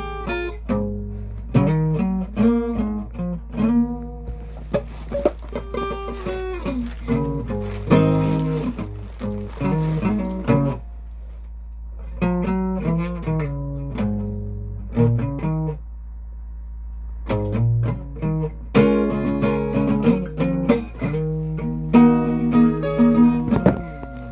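Acoustic guitar played fingerstyle, picked single notes and chords in a loose, wandering line. The playing thins out to ringing notes twice around the middle, and a steady low hum runs underneath.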